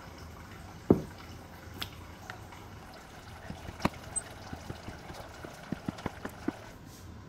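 A plastic jelly cutter slicing through a wet block of muk (Korean starch jelly) and knocking on a plastic cutting board: one firm knock about a second in, then a run of light taps and wet clicks in the second half.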